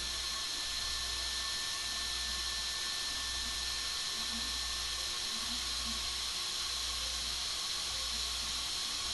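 Small cooling fan on a 60 A Hobbywing EZRun-type brushless ESC running steadily: an even whirring hiss with a faint steady tone.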